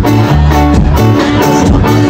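Loud band music through a stage PA system, with a steady fast beat and heavy bass.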